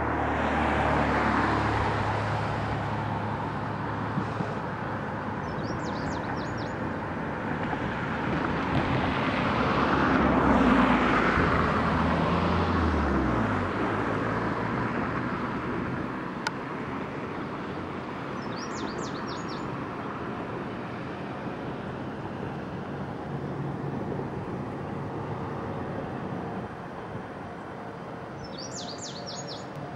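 Outdoor road traffic, with a motor vehicle's engine growing louder and then passing, its pitch dropping as it fades about thirteen seconds in. A bird gives quick runs of high chirps three times.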